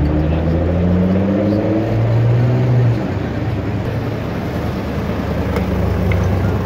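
Car engine running as a Chevrolet Camaro Z28 V8 drives slowly past, its pitch rising and falling with the throttle, then dropping to a lower, steadier note about three seconds in.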